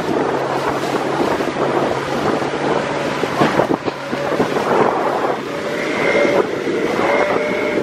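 Wind buffeting the microphone and water splashing against the hull of an aluminium duck boat running across choppy bay water, with the outboard motor's steady hum underneath for the first half. A couple of steady higher tones come in near the end.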